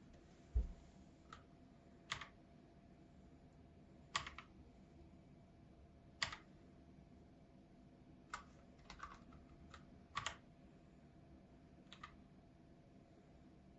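Keys of a KOORUI MK082 mechanical keyboard pressed one at a time: about a dozen separate keystrokes spaced a second or two apart, with a quick run of three or four near the middle. A soft low thump comes about half a second in.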